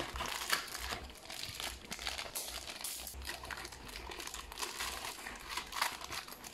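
Clear plastic bags holding Beyblade parts crinkling and rustling as they are handled, with scissors snipping one bag open near the end.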